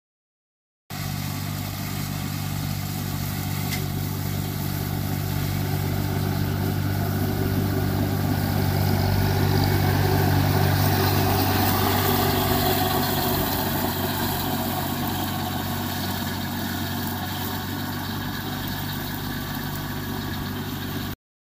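Compact tractor's engine running steadily at working speed while driving a three-point drum mower through tall grass. It grows louder as the tractor passes close, about ten seconds in, then fades as it moves away, and cuts off suddenly near the end.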